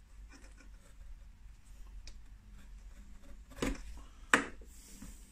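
Quiet handling and cutting sounds of a Stanley knife slicing through a silicone hose held on a metal tube, with two sharp knocks about half a second apart a little past halfway.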